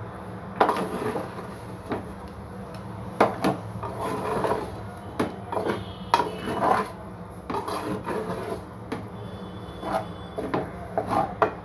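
A wooden spatula scraping and knocking against a metal cooking pot as cooked rice is stirred and folded, in irregular strokes from about half a second in. A steady low hum runs underneath.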